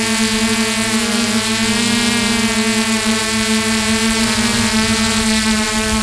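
Small drone's electric motors and propellers humming steadily, heard close up from its own onboard camera, the pitch wavering slightly as it manoeuvres.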